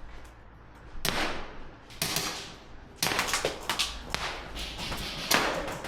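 Airsoft gunfire with sharp cracks: single shots about a second apart, then a fast run of shots and hits for the last three seconds.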